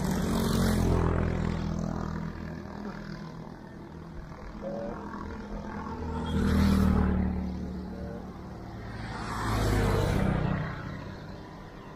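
Motor vehicles passing close by on the bridge, one after another: engine sound swells and fades three times, near the start, a little past the middle and near the end.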